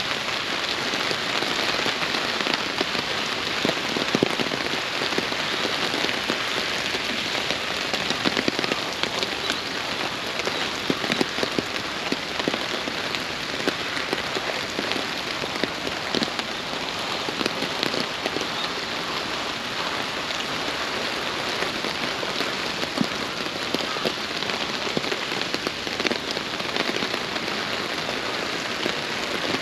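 Steady rain, with many separate drops striking close by in a dense, even ticking.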